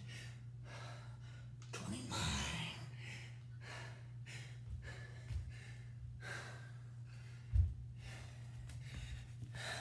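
A man breathing hard through the mouth, quick gasping breaths about twice a second, out of breath from a set of push-ups, with a heavier strained exhale about two seconds in. A single dull thump comes about three-quarters of the way through, over a steady low hum.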